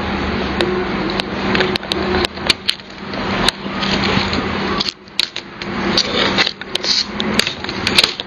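Irregular sharp clicks and taps from the keys of a small folding USB pantograph keyboard being typed on, over a steady low hum.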